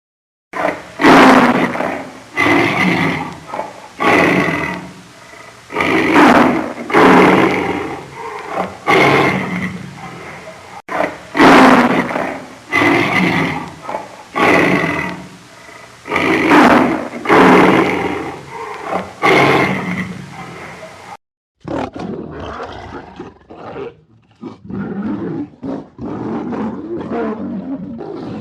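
Lion roaring: a long bout of loud roars, one every second or so, that cuts off suddenly about 21 seconds in. Quieter, shorter lion grunts follow.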